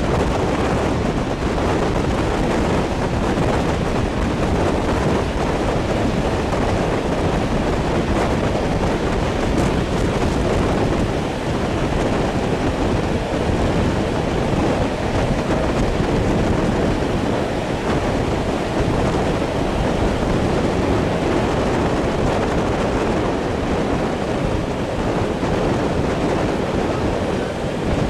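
Wind rushing over the microphone and the steady rumble of a passenger train's coach rolling along the track, heard from an open window.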